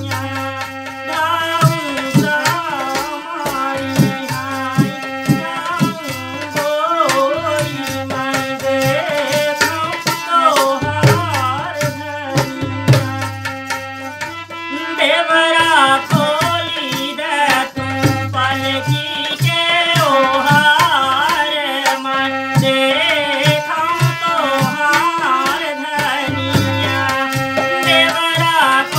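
Bagheli folk song: a woman singing over a harmonium's held chords, with a dholak drum beating a steady rhythm.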